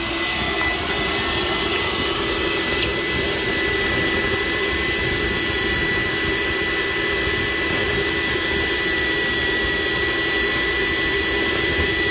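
Pond filtration equipment running: an Alita AL-series air pump and a sand-filter water pump giving a steady mechanical hum and hiss with a thin, steady high tone.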